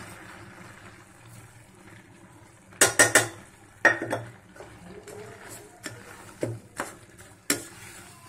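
A steel slotted spoon knocks and scrapes against a steel pan as jaggery is added and stirred into boiling, reduced milk and grated carrot. There is a quick cluster of three sharp metal knocks about three seconds in and another about a second later, then scattered lighter knocks as the stirring goes on over a low bubbling.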